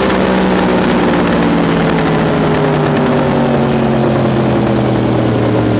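2018 Yamaha R1 crossplane inline-four running through a Spark Grid-O exhaust, its note falling slowly and steadily as the revs drop.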